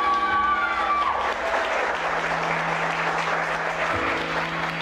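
Audience applauding, with music playing under the clapping.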